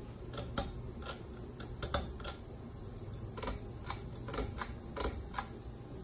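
A run of irregular light clicks and ticks from a Hampton Bay Tripoli ceiling fan's pull-chain switch and swinging chains as the fan is pulled on and starts turning.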